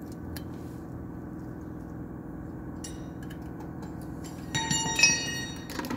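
Steel drum-brake hardware clinking and ringing near the end, as the shoe's hold-down pin and lock washer are handled and fitted, over a steady low hum.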